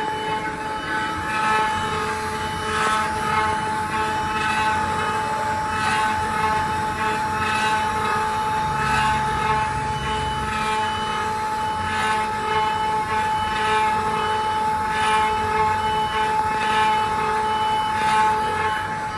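Eight-spindle CNC wood router with a rotary axis carving wooden columns: the spindles whine at a steady pitch, with a rush of cutting noise every second or two as the bits bite into the turning wood.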